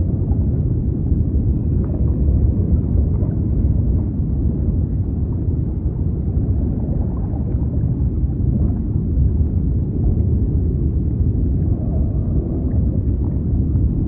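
Steady, muffled low rumble of underwater ambience, with a few faint light ticks.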